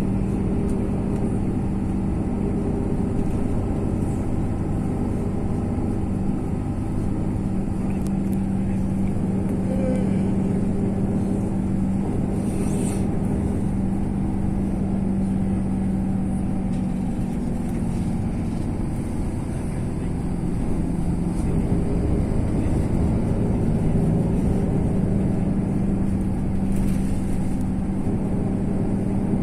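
Steady engine drone and road noise heard from inside a moving road vehicle's cabin, with a strong constant low hum.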